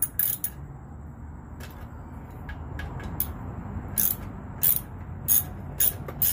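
Socket ratchet wrench clicking in short bursts as a bolt is turned. The strokes are scattered at first, then come steadily, about one every half-second, from about four seconds in.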